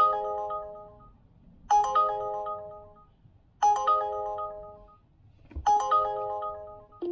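Smartphone alert chime, a short ringtone-like phrase of several notes that rings out and fades, repeating four times about two seconds apart: the delivery app's incoming-order alert.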